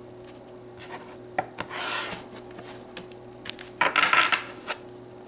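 Oracle cards handled by hand: cards sliding and rubbing against each other with a few light clicks, a swish about two seconds in, and a louder burst of card rustling about four seconds in.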